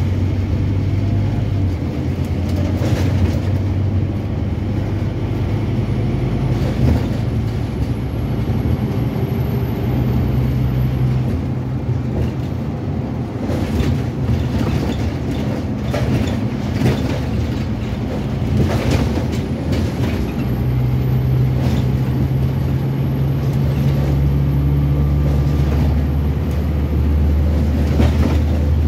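Inside a Scania N270UD OmniCity bus on the move: its five-cylinder diesel engine drones low, the note changing pitch several times as it works through the gears, with occasional knocks and rattles in the cabin. A faint high whine rises twice and cuts off.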